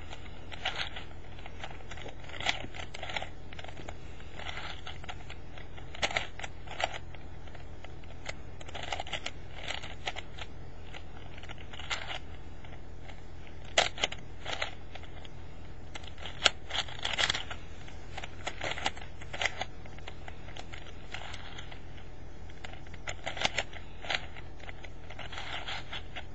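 Plastic 4x4 Rubik's cube (Rubik's Revenge) being turned by hand, its layers clicking and clacking in irregular clusters of quick turns.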